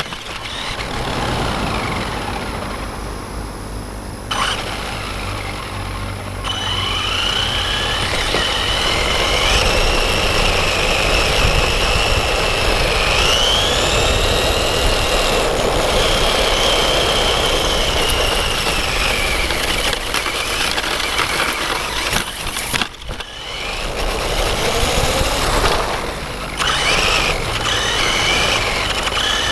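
Brushless electric motor of a Traxxas E-Revo VXL RC truck whining, its pitch rising and falling again and again with the throttle, over a steady rushing noise. The sound drops out briefly about three-quarters of the way through.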